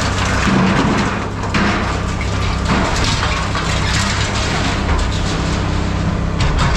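Scrap metal being crushed in a heavy processing machine: a steady low machine hum under continuous crunching and cracking.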